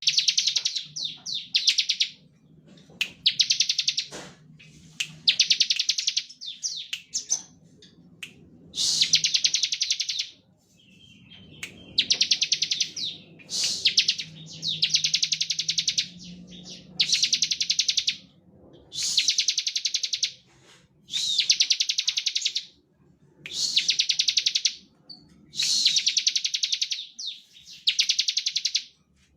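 Bar-winged prinia (ciblek) singing in its rapid 'ngebren' style: high, fast-pulsed trilling bursts about a second long, repeated roughly every two seconds.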